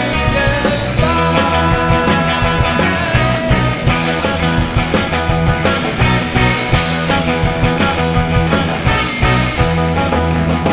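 Rock band playing live: electric guitars and drums, with a steady drum beat.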